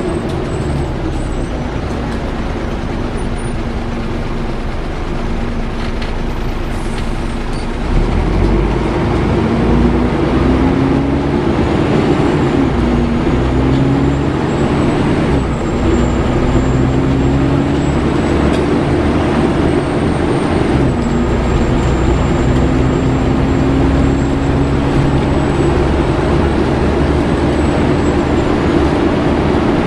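Volvo B7TL double-decker bus heard from the upper deck: the engine note steps up about 8 s in and climbs, then drops back and climbs again several times as the bus pulls away through its gears. A thin high whine from the engine cooling fan runs over it from about a third of the way in.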